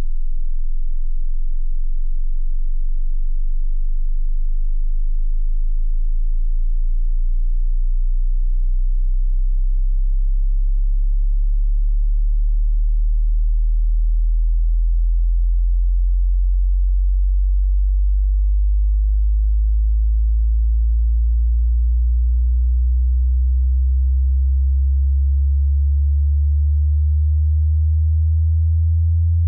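A pure sine-wave test tone at steady loudness, gliding slowly upward in pitch from a very deep hum near 20 Hz to about 100 Hz. This is the low end of an exponential hearing-test sweep that runs from 20 Hz to 20 kHz.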